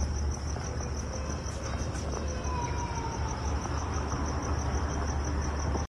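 A cricket chirping in a fast, even pulse that never lets up, over a low steady rumble.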